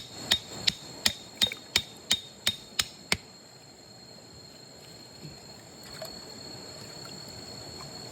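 A run of sharp knocks, about three a second, stopping about three seconds in, followed by a faint steady noise.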